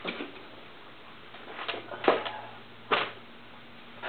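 A few short knocks and clicks of hard objects being handled, the two loudest about two and three seconds in, over a faint steady low hum.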